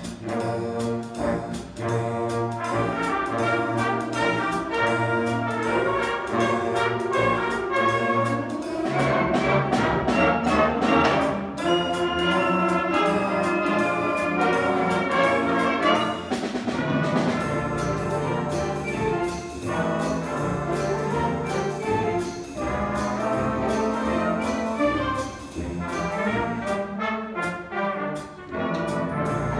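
Student concert band playing a swing-style piece, with trumpets and trombones to the fore over the woodwinds and a steady drum beat.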